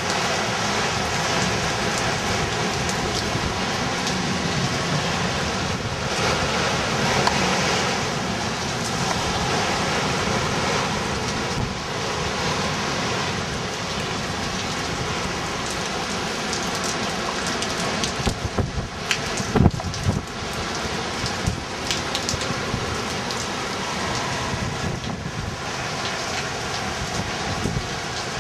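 Steady rain and wind from a hurricane that is dying down. There is a cluster of sharp knocks or spatters about two-thirds of the way through.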